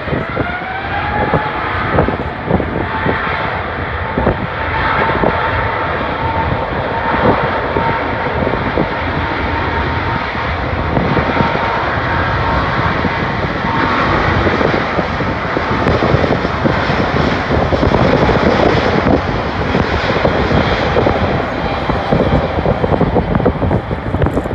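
Airbus A350-900's twin Rolls-Royce Trent XWB turbofans at takeoff power during the takeoff roll: a loud, steady jet roar. A whine rises in pitch at the start, then holds steady.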